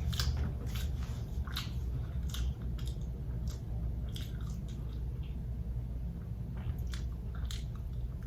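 A person chewing and biting food from a Popeyes meal close to the microphone: irregular wet, crunchy clicks and crackles, over a steady low hum.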